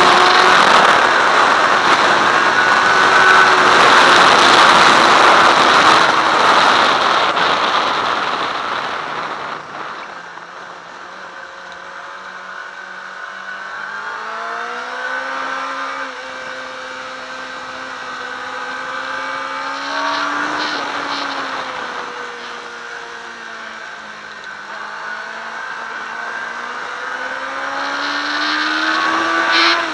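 Sport motorcycle at speed on a race track, heard through an onboard camera: a loud rush of wind over the engine for the first several seconds. About nine seconds in the wind fades and the engine note drops, then it rises and falls several times and climbs again near the end.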